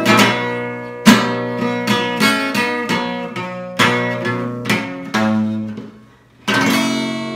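Acoustic guitar strummed in chords, then one last chord struck about six and a half seconds in and left to ring out and fade, closing the song.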